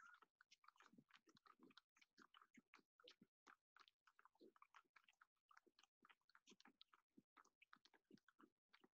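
Near silence: faint, choppy crackle and clicks, broken every so often by brief complete dropouts.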